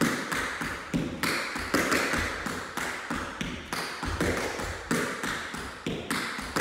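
Tap shoes' metal taps striking a hard studio floor in a steady rhythm, about three taps a second, echoing in the large room.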